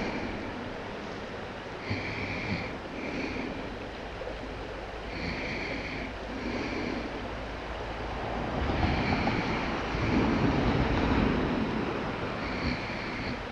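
Wind buffeting the microphone outdoors by the water, swelling stronger partway through. Short high notes repeat in pairs about a second apart, four times.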